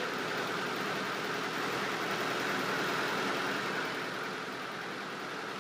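1920s Caterpillar diesel engine running steadily, turning the flywheel of the piston air compressor that charges the fog horn's air tanks.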